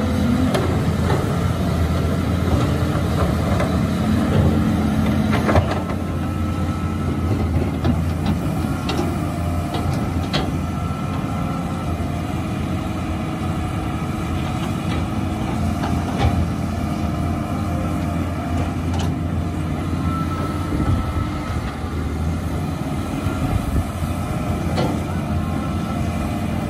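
Caterpillar 320C hydraulic excavators' six-cylinder diesel engines running steadily under digging load, with a few short knocks as the buckets work the soil.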